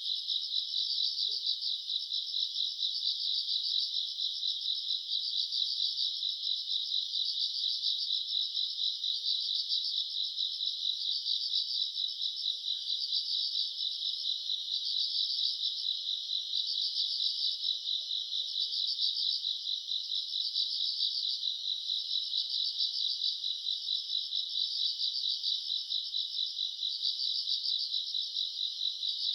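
Summer-night chorus of grass insects such as crickets, trilling together in a steady, high-pitched, rapidly pulsing drone.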